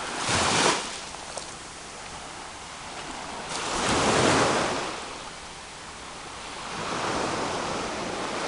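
Caribbean sea waves breaking and washing in, the surf swelling three times in a few seconds.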